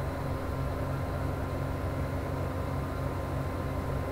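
Steady low background hum, like a machine running continuously in the room, with no breaks or distinct events.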